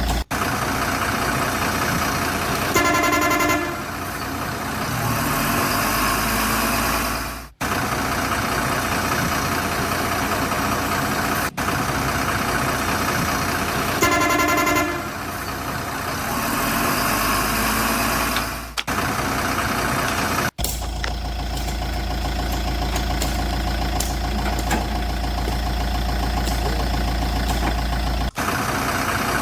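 Truck engine running, with a horn honking about three seconds in and again about fourteen seconds in. The sound cuts off abruptly several times, and one stretch with the horn repeats.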